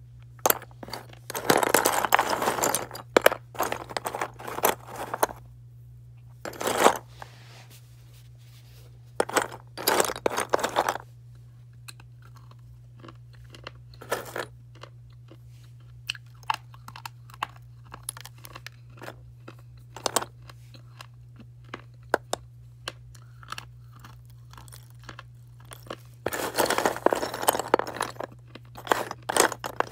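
Soft slate pencils being bitten and chewed, crunching in several bursts. The longest runs come near the start and near the end, with scattered small crackles in between.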